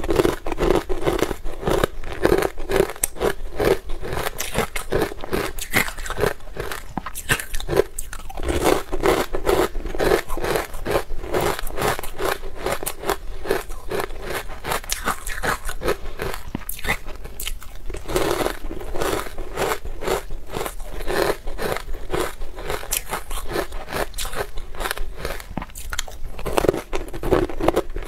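Matcha-powder-coated ice being bitten and chewed close to the microphone: dense crisp crunching throughout, in heavier bursts four times, with lighter chewing in between.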